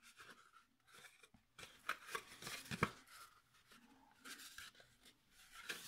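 Thick pearlescent card paper handled and bent along its scored fold lines: faint rustling and creasing in several short bursts.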